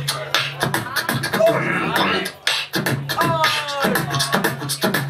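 Solo beatboxing into a handheld microphone: a rapid stream of mouth-made drum hits over a steady low hum, with a falling pitched vocal sweep a little past the middle.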